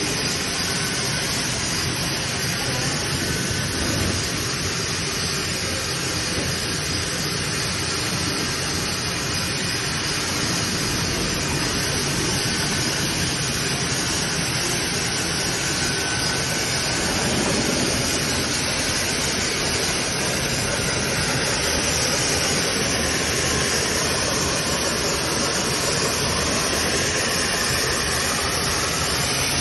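Corrugated plastic hose extrusion line running: a steady machine hum and hiss that holds at one level throughout.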